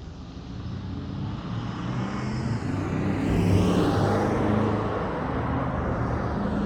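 Charger Daytona's Hemi V8 exhaust through dual Jones Turbine JR20 mufflers, a low steady rumble that grows louder over the first few seconds, peaks near the middle, then holds.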